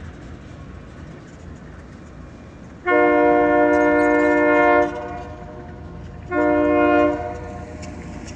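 GE B23-7 diesel locomotive sounding its air horn: a long blast about three seconds in, then a short blast about three seconds later. Beneath the blasts the locomotive's engine rumbles low.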